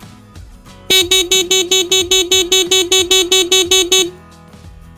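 ENGWE anti-theft bike alarm going off while armed: a loud electronic tone beeping rapidly, about six beeps a second, for about three seconds starting about a second in.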